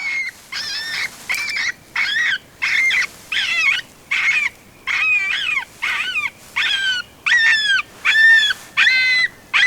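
Electronic predator call playing a repeated series of high, whining, dog-like yips, about two a second, each bending in pitch, to lure a coyote in.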